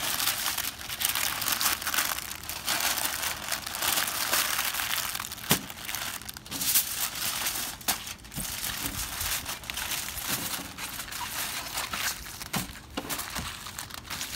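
Paper and then aluminium foil crinkling and crumpling as they are folded and squeezed by hand around a smoked turkey leg.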